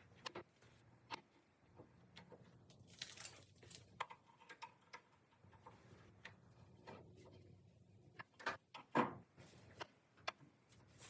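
Faint, irregular clicks and knocks of steel parts and a clamp being handled and worked, with a brief hiss about three seconds in.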